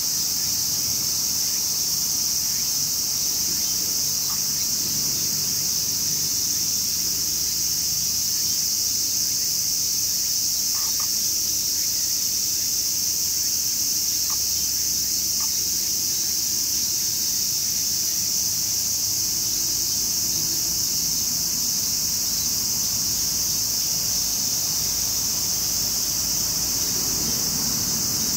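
Steady, high-pitched insect chorus, a continuous shrill buzz without a break, with a few faint short chirps here and there.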